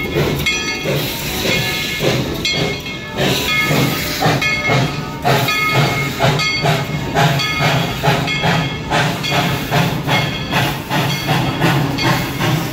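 Steam locomotive pulling out of the station: a steady run of exhaust chuffs over the hiss of steam venting from the cylinders.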